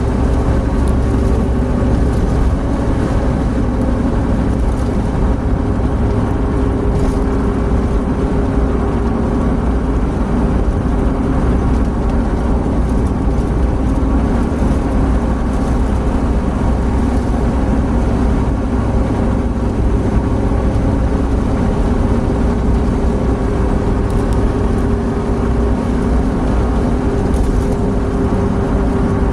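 Opel Blazer cruising at about 100–117 km/h, heard from inside the cabin: a loud, steady drone of engine, tyres and wind with an unchanging low hum.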